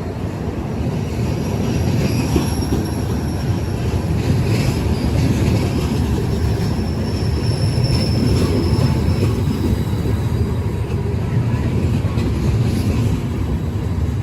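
A train running through the station: a steady, loud rumble of wheels on rails, with a faint high-pitched wheel squeal coming and going.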